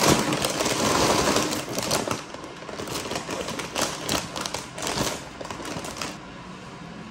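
Brown paper grocery bag rustling and a large bag of potato chips crinkling as it is pulled out of the bag and handled. The crackling is loudest in the first couple of seconds and stops about six seconds in.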